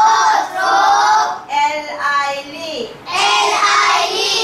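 Young children singing in a sing-song chant, in short phrases of about a second with brief breaks between them.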